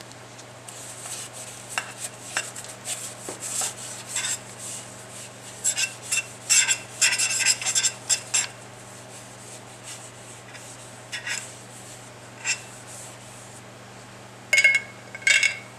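A paintbrush dipped and worked in a glass jar of soapy water, clinking against the glass, and brushed over the cylinder bores and valve seats of a Ford Model A engine block, in scattered scrapes and clicks. There is a busy run of them about six to eight seconds in and two ringing clinks near the end. It is soapy water going on during an air-pressure test of the block for cracks.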